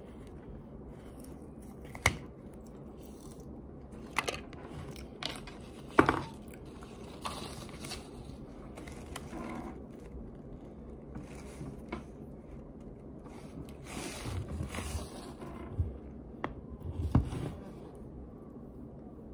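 Scattered taps and scrapes of long acrylic nails and a spoon on plastic cornstarch tubs, with crunching of cornstarch being eaten from the spoon.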